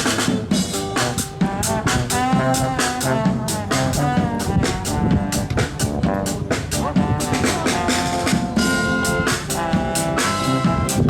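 Instrumental music with brass and a drum kit keeping a steady beat, in a jazz style.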